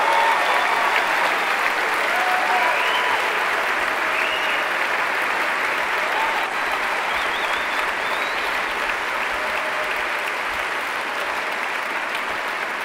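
Large theatre audience applauding steadily, with a few shouts and whoops over the first several seconds, the clapping slowly tapering off.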